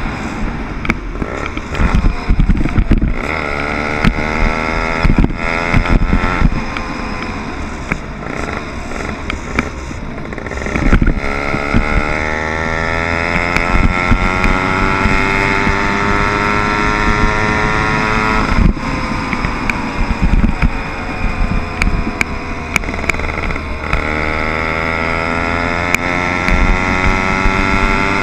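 Small 60/80cc motorbike engine running under way, its pitch climbing steadily as it gathers speed, dropping suddenly about two-thirds through and climbing again near the end. Scattered knocks and wind noise ride over it.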